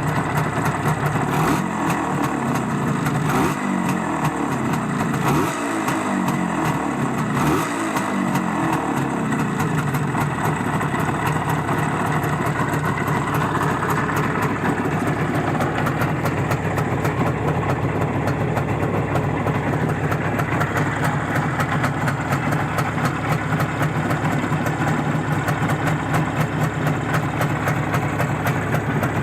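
IZh Jupiter-5 two-cylinder two-stroke motorcycle engine blipped several times in the first ten seconds, each rev falling away, then idling steadily.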